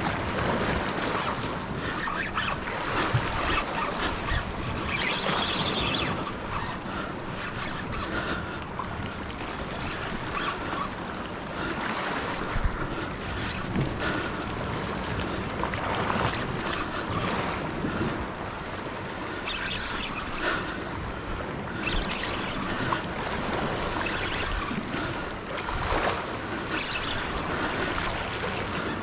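Ocean waves washing over a rocky reef edge, with wind buffeting the microphone.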